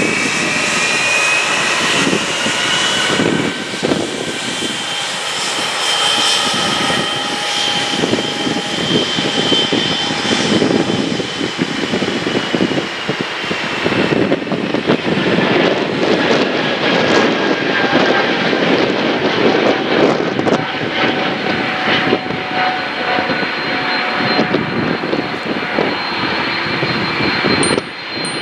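Airbus A220-300 jet airliner at takeoff thrust, climbing out, its Pratt & Whitney PW1500G geared turbofans giving a loud steady rumble. Whining tones sit over the rumble: one rises over the first few seconds and then slowly sinks, and a higher steady whine comes in near the end.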